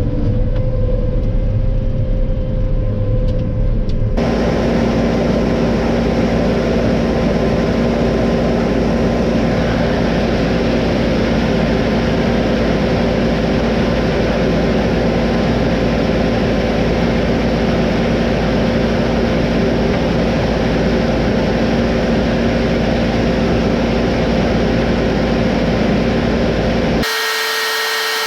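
Heavy farm machinery running steadily, in three edited stretches. A hard cut about four seconds in brings an even, louder run with a steady low hum. Another cut near the end switches to a quieter sound carrying steady high whining tones.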